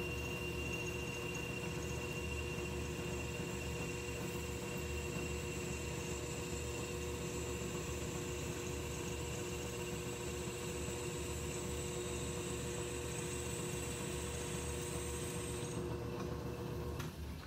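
South Bend Heavy 10 metal lathe running steadily with a constant hum and whine while the tool is hand-fed along the work to turn a shoulder. Near the end the high whine stops and the sound drops a little.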